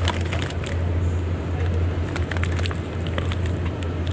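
Plastic packaging crinkling and clicking as a sealed food pack is handled and lifted off a shelf, over a steady low hum.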